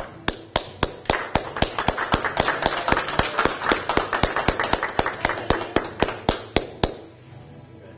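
Applause: one set of loud, even hand claps, about four a second, over lighter clapping from a small group, stopping about seven seconds in.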